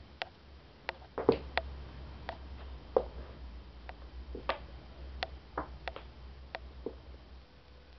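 Irregular sharp clicks and taps, one or two a second, as a cat paws and scrabbles at a toy mouse against hard surfaces, with a steady low hum underneath.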